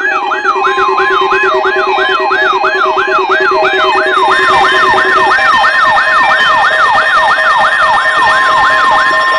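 Several NOAA weather alert radios sounding their alarms at once, activated by the weekly test broadcast: a siren-like falling sweep repeating about three times a second, over a steady high tone and a low rapid beeping that stops about halfway through.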